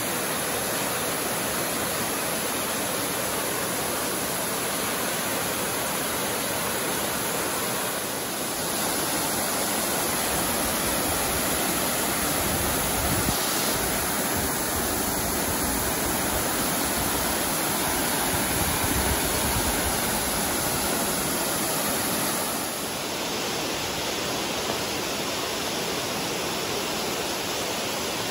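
Waterfall pouring down a rock face into a pool: a steady, full rush of falling water. It grows a little louder for the middle part of the clip and eases slightly for the last few seconds.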